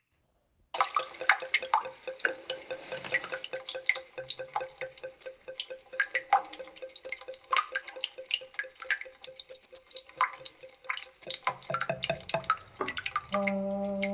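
Water dripping from a bathroom tap: a fast, irregular run of drops, some ringing with a short note, over a faint steady tone. A steady low hum starts near the end.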